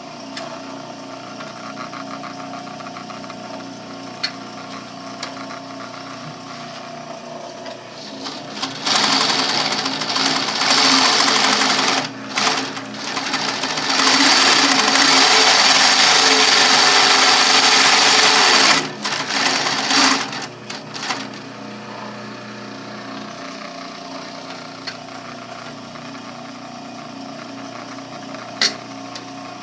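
MITT 4000 triple-feed (walking-foot) sewing machine. A steady hum runs throughout, and about a third of the way in the machine sews in loud, fast runs for some twelve seconds. It stops and starts several times, ends in a few short bursts, and then only the hum remains.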